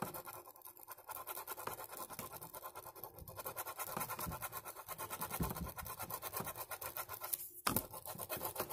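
Ballpoint pen scribbling quickly back and forth on paper, colouring in a drawing, with a sharp tap about seven and a half seconds in.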